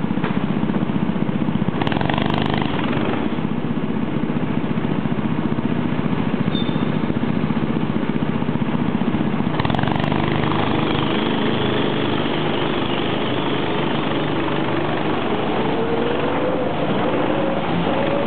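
Go-kart engines running steadily at idle in a loud drone while the karts sit stopped, with two brief noisy bursts about two and ten seconds in. Near the end an engine's pitch rises as the kart pulls away.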